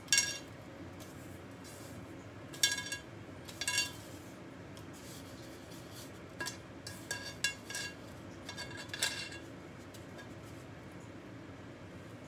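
A utensil clinking against a ceramic bowl, irregular short ringing clinks that come in small groups, busiest in the second half.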